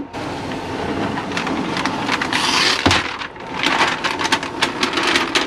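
Protective paper masking being peeled off an acrylic sheet: a continuous crackling rustle full of tiny ticks, with a sharper click about three seconds in.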